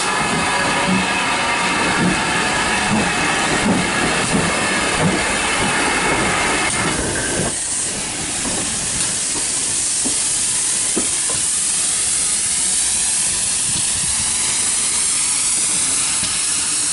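GWR Manor class 4-6-0 steam locomotive No. 7822 Foxcote Manor passing slowly over curved pointwork, its wheels squealing for the first seven seconds or so. A loud, steady hiss of steam then takes over as it draws away.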